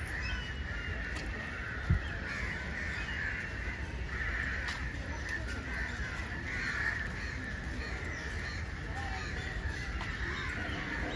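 Crows cawing repeatedly, several calls overlapping, over a low outdoor rumble, with one short thump about two seconds in.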